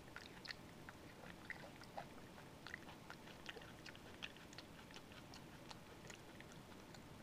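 Java macaque chewing and smacking her lips on mouthfuls of soup: faint, irregular wet clicks and smacks, several a second.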